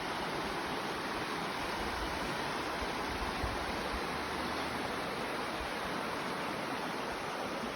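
A rocky mountain river rushing and splashing steadily over stones, a continuous even hiss with some low rumble.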